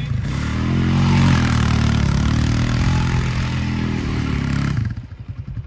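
Arctic Cat DVX 250 ATV engine held at high revs under hard throttle as the quad spins a donut on grass, with a hiss over it. About five seconds in, the throttle comes off and the engine drops to a loping idle.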